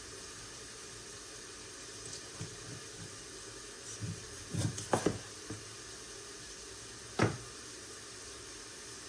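Kitchen work on a raw chicken: a steady hiss under a few short knocks and handling noises, the loudest knocks about five and seven seconds in.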